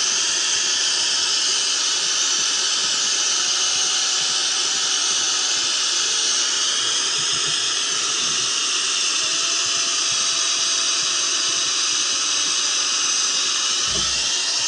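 Handheld canister gas torch burning with a loud, steady hiss as its flame heats a steel axe head.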